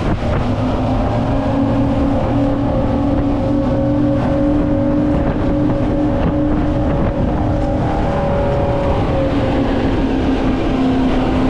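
Twin outboard motors driving a centre-console boat at speed: a steady engine drone that drops slightly in pitch near the end, over the rush of wind and spray.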